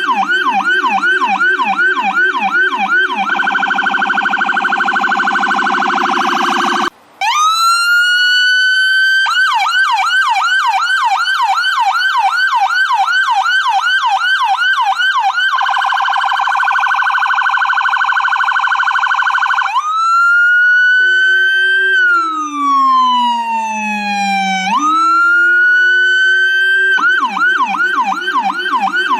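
Electronic ambulance siren cycling through its tones: a rapid yelp, a faster warble, and a long wail that rises and then slowly falls before the yelp returns. It cuts out for an instant about seven seconds in.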